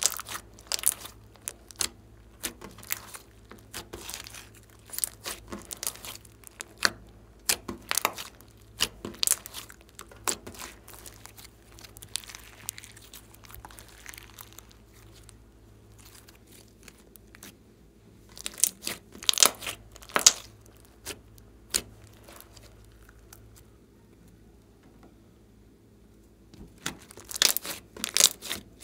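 Hands squeezing, folding and stretching a mass of glossy slime mixed with beads, giving irregular sharp pops and crackles as air trapped in the folds bursts out. The pops thin out for a few seconds past the middle and come thick again near the end.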